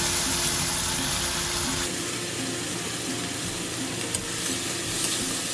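Water running steadily from a tap, filling the emptied sweet chili sauce bottle to rinse out the last of the sauce.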